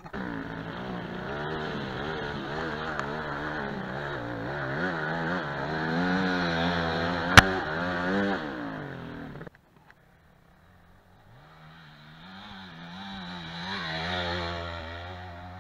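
Yamaha WR250F dirt bike's single-cylinder four-stroke engine revving up and down under load as it climbs, with one sharp knock about seven and a half seconds in. The engine sound stops abruptly at about nine and a half seconds. After a short gap it comes in again, rising to a peak and falling away as the bike climbs a leafy slope.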